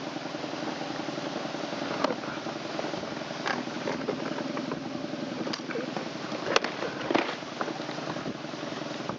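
Small outboard motor on an inflatable boat running steadily at low trolling speed, with a few short sharp knocks or splashes over it, the loudest about two-thirds of the way through.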